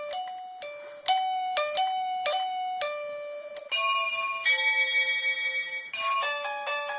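Plug-in wireless doorbell chime unit playing its electronic chime tunes: a melody of bell-like notes, then a held chord about four seconds in, and a new, quicker tune starting near the end.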